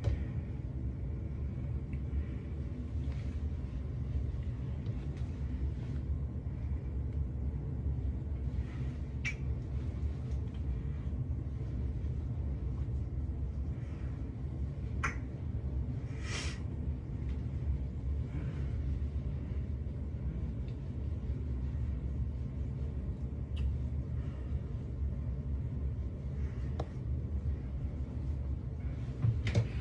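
Steady low rumble under a few brief, faint scrapes of a razor shaving skin lathered with shaving cream, about nine, fifteen and sixteen seconds in, and a sharp knock at the very end.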